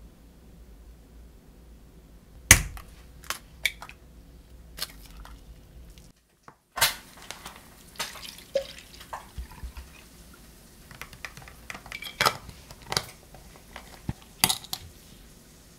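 Knocks and clicks of a plate and a plastic cup handled on a table, the loudest knock a couple of seconds in, with juice poured from a plastic bottle into the plastic cup partway through.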